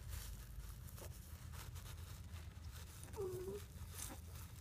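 Faint, scattered crinkling and clicking of a Yorkshire terrier chewing and tearing at tissue paper. A brief faint tone about three seconds in.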